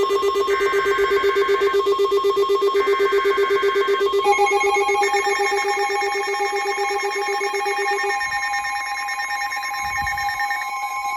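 Emergency Alert System header and alert tones from a weather radio broadcast. A run of short, screechy bursts of digital header data plays over steady electronic alert tones, together with a rapidly pulsing lower tone that stops about eight seconds in.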